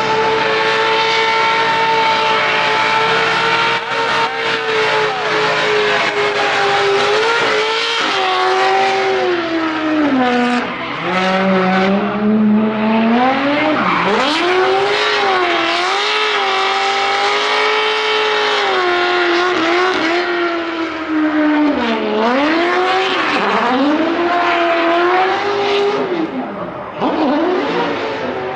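Drift car's engine held at high revs while its rear tyres spin and squeal through the slides. The revs dip and climb back several times as the throttle is worked.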